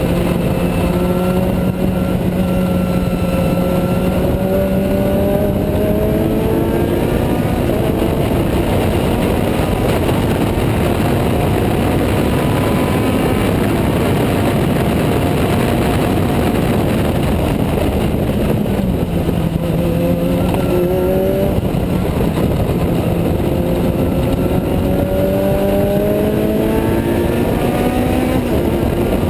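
Juno SSE race car's Honda Type R four-cylinder engine at racing speed, heard from the open cockpit under a dense rush of wind and road noise. Its pitch holds fairly steady early on, drops with a downshift about two-thirds of the way through, then climbs through the revs again.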